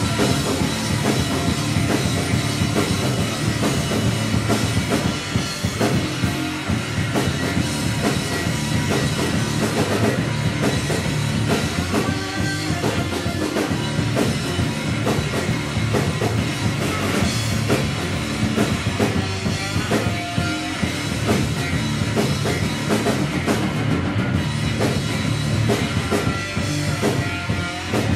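Live rock band playing an instrumental stretch with no singing: electric guitar, bass guitar and a full drum kit, loud and dense throughout.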